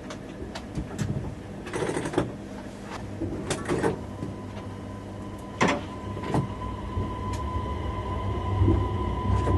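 Cab of an X31 Øresundståg electric train at a standstill: scattered clicks and knocks, then a steady high tone from about halfway through, over a low hum that grows louder near the end.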